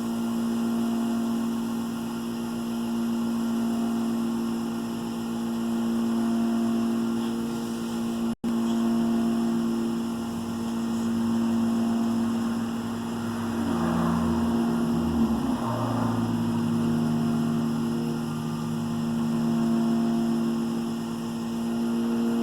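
Wood lathe running steadily, a continuous motor hum that swells and fades slowly in level. About two-thirds of the way through, the low part of the hum shifts and wavers for a couple of seconds. Shortly after the third of the way mark the sound cuts out for an instant.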